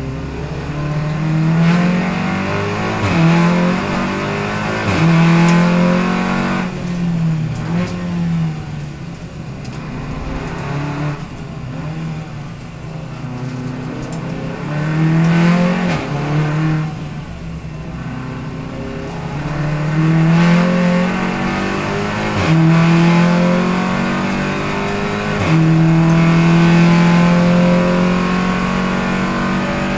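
Race touring car engine heard from inside the cockpit, pulling hard with its pitch climbing through the gears and dropping sharply at each upshift. It eases off and goes quieter under braking for slow corners a few times, then runs a long pull in the higher gears near the end.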